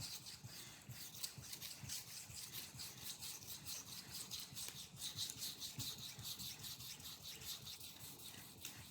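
Knife blade being stroked back and forth on a 5000-grit whetstone: a faint, even run of quick scraping strokes, several a second.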